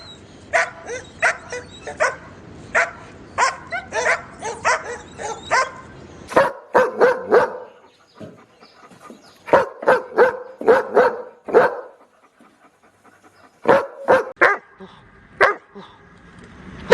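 Dogs barking: a steady run of sharp barks, then bursts of rapid barks separated by short pauses.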